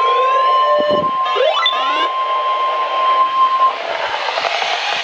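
NOAA Weather Radio 1050 Hz warning alert tone, a loud steady single tone that cuts off about three and a half seconds in, heralding a new warning broadcast. Radio static runs under it, with sweeping whistles that rise in pitch, and carries on alone after the tone stops.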